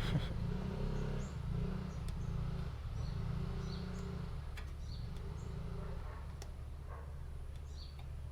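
Small birds chirping in short high calls every half second or so, over a steady low hum, with a low rumble during the first half.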